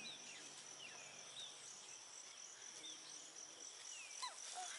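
Faint, steady high-pitched insect trill, with short falling chirps scattered through it and a longer chirp sliding down near the end.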